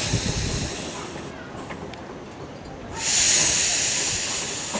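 Steam hissing from the cylinder drain cocks of a 15-inch gauge Exmoor-built 2-6-2T tank locomotive. A hiss fades over the first second, then a louder burst of hiss starts about three seconds in and slowly tails off.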